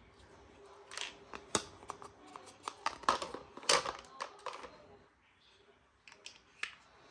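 Plastic parts and packaging being handled: a quick series of sharp clicks, taps and crinkles, with a short lull before a few more clicks near the end.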